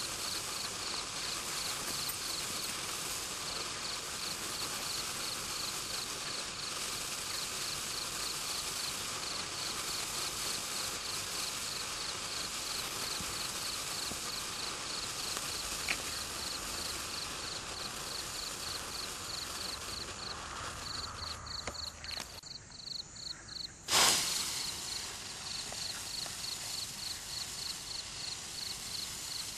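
Winda Neon Sparkler burning with a steady fizzing crackle, which thins out briefly about 22 seconds in and then gives one sharp loud pop about 24 seconds in. A cricket chirps in a steady rapid pulse throughout.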